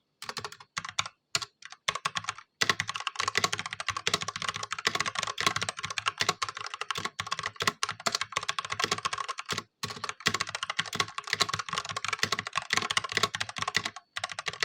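Fast typing on a stock Ajazz K870T mechanical keyboard with Huano red linear switches, a dense stream of key clicks and clacks. A few scattered keystrokes at first, then steady rapid typing with short pauses about ten seconds in and near the end.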